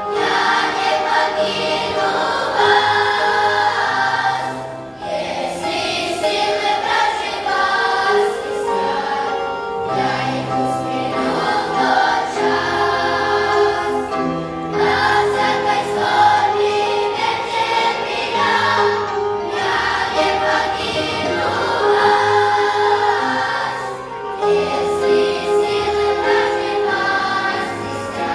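Large children's choir singing a hymn in Russian, in long phrases with short breaks, over steady held low notes of an accompaniment.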